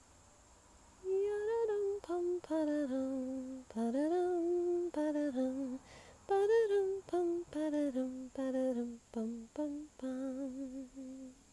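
A woman singing a wordless tune, humming it in short phrases of a few notes each with brief pauses between, starting about a second in.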